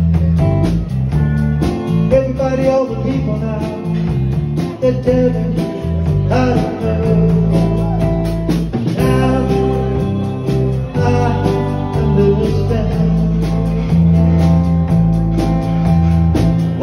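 Live band playing a country-style song: electric bass, acoustic guitar and drums.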